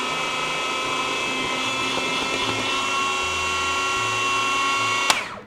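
Electric food processor running steadily, its motor whining as it chops gherkins, capers and parsley into a green sauce. It stops with a click about five seconds in.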